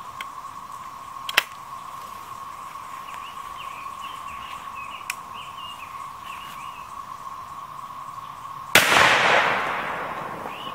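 A single shotgun blast about nine seconds in, fading out over a second or so. Earlier there is one sharp click about a second in, and a steady high tone runs underneath with faint chirps.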